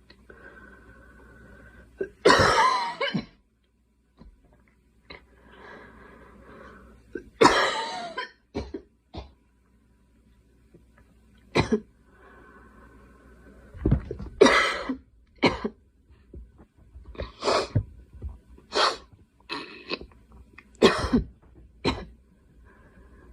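A girl coughing repeatedly: a dozen or so harsh coughs, some single and some in quick runs of two or three, with short pauses between.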